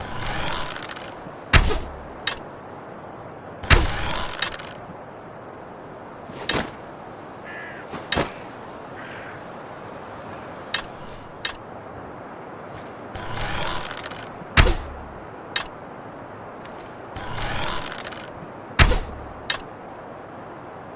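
A wooden bow being drawn and shot several times: a scraping draw lasting about a second, then a sharp snap of release, heard near the start, about two-thirds in and near the end. Single sharp knocks and clicks from the bow and arrows fall in between.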